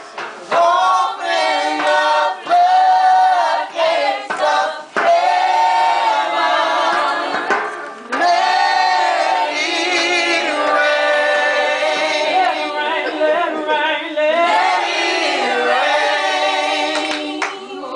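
A group of men and women singing a gospel song together, with long held notes.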